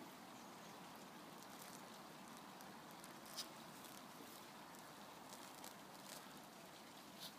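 Faint footsteps of high-heeled, lugged-sole boots treading on grass and fallen leaves: soft patter with a few light crackles, the sharpest about three and a half seconds in and another near the end.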